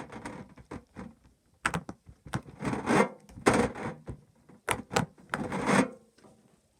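Hard-shell pop-it fidget toy being popped: a string of sharp, irregular plastic clicks with scratchy noise between them, stopping about a second before the end.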